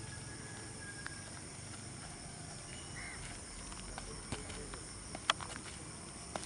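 Outdoor background noise with a steady low hum, a few brief chirps near the start and about three seconds in, and scattered light ticks in the second half, the loudest a single sharp tick about five seconds in.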